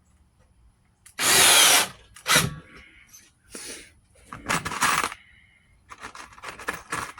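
Power drill running in short bursts to drive screws that fasten metal table legs to a wooden countertop, the longest and loudest burst a little over a second in. Clicks and knocks of handling come between the bursts.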